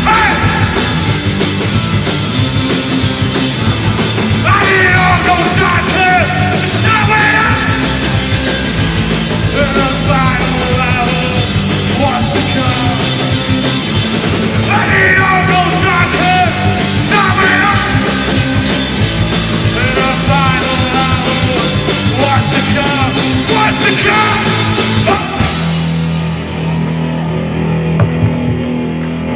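Live rock band playing loudly, with electric guitars, drums and vocals. About 26 seconds in the full band cuts out, leaving a low held note ringing on.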